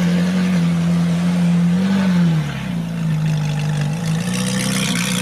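Ferrari 458's V8 engine running with a steady low note. The revs rise briefly about two seconds in, then drop lower for a second before settling back.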